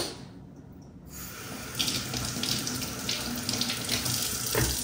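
Kitchen faucet running into a stainless steel sink, water splashing over a potato being rinsed by hand. The flow starts about a second in, grows louder, and stops near the end with a light knock.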